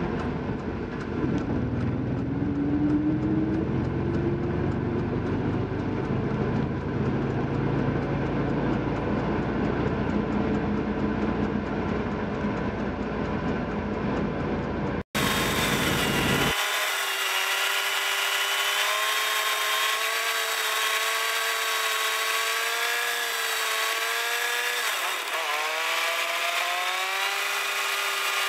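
Fiat 500's air-cooled two-cylinder engine heard from inside the cabin while driving, its sound sped up with time-lapse footage so that the revs rise and fall quickly. About halfway the sound breaks off for a moment. After that it is a thin, high whine with the low rumble gone, like a power tool.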